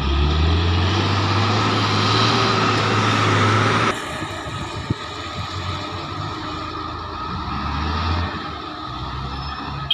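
Heavy diesel engines of a Komatsu PC300 excavator and a dump truck running at a mine loading face, the engine note stepping up shortly after the start as the excavator works. The sound drops and changes abruptly about four seconds in, and the engine swells again near the end.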